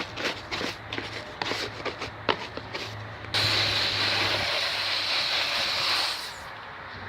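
A few light clicks and handling noises, then a steady hiss of pressurised gas being released, starting suddenly about three seconds in and lasting about three seconds before it fades.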